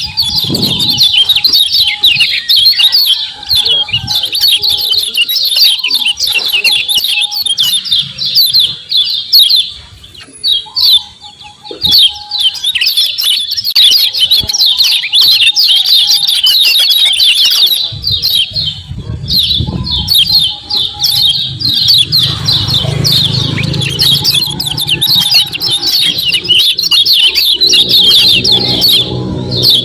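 Kecial kuning (yellow white-eyes) giving rapid, dense high-pitched 'ciak ciak' chattering calls, breaking off briefly about ten seconds in. A lower sound runs underneath in the second half.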